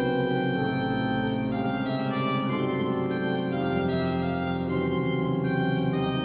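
Church pipe organ playing slow, dramatic sustained chords that change every second or so over held bass notes.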